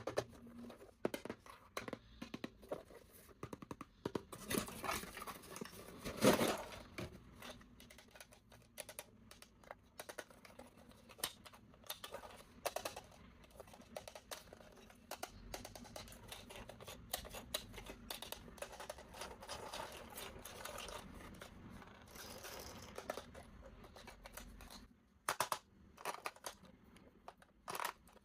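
Plastic toy car parts and packaging being handled and fitted together: irregular clicks, taps and rustling, louder in a few short clusters.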